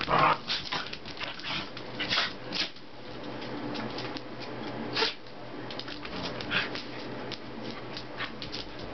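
Two small dogs play-wrestling: a short pitched growl or yip at the start, then scattered scuffling and clicking noises, with one sharper sound about five seconds in.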